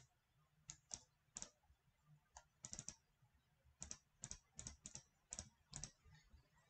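Faint computer mouse clicks: about fifteen sharp clicks in an uneven run, some in quick pairs, as a number is entered digit by digit on an on-screen calculator.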